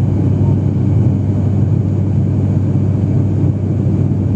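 ATR 72-600's Pratt & Whitney PW127M turboprop engine and propeller running steadily in flight, heard inside the passenger cabin as a loud, even, low drone.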